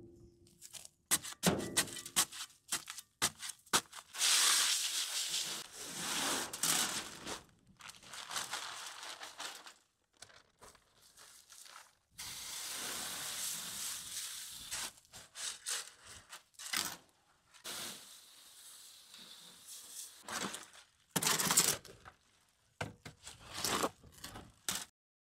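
A shovel chopping into and tearing open a paper sack of concrete mix in a steel wheelbarrow, with sharp knocks of the blade. The dry mix pours out in long rushes of noise, and near the end the shovel scrapes and knocks against the wheelbarrow while mixing wet concrete.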